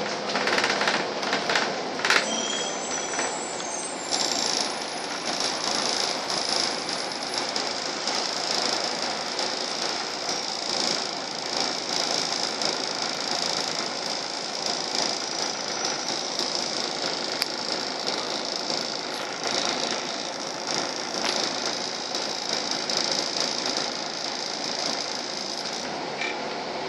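Cabin noise on the upper deck of a Volvo double-decker bus under way: a steady running rumble and hiss with the body and fittings rattling, and a few sharp clicks in the first two seconds.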